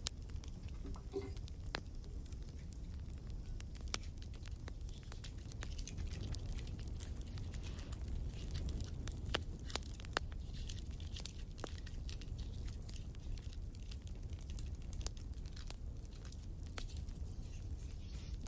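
Crackling wood fire: a steady low rumble with scattered sharp pops and snaps.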